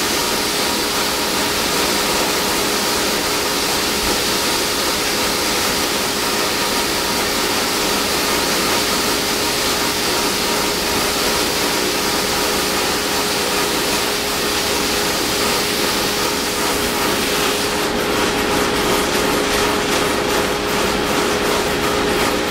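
Drum sander running steadily, a 120-grit sanding drum taking a pass off a Sitka spruce guitar top plate: a constant motor hum over the hiss of sanding.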